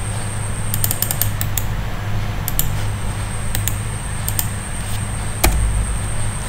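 Computer mouse clicks and keypresses: a quick run of clicks about a second in, then single clicks every second or so, the loudest with a dull thump near the end. Under them runs a steady low hum with a faint high whine.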